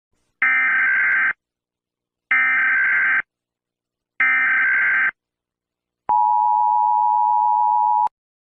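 Emergency Alert System tones: three short bursts of buzzing digital SAME header data, evenly spaced about two seconds apart. Then a steady two-tone attention signal sounds for about two seconds and cuts off abruptly.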